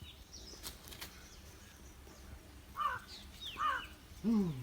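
Crows cawing outdoors, two harsh calls a little over halfway through, over faint background noise. A short low falling sound follows near the end.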